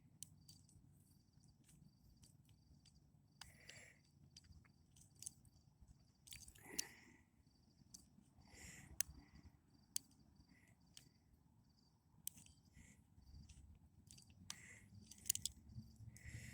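Faint clicks and scrapes of a lock pick and tension wrench working the pin lock of a TruGuard door knob, with a few sharper ticks. A faint, evenly repeating insect chirping runs underneath.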